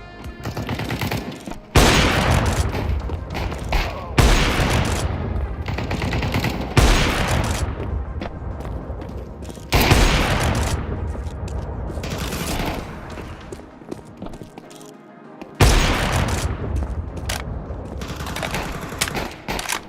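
Loud bursts of rapid gunfire-like sound effects over background music. Each burst starts suddenly, about five times, and runs for a few seconds.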